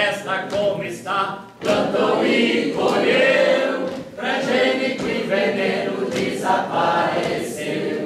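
A group of people singing a chant together.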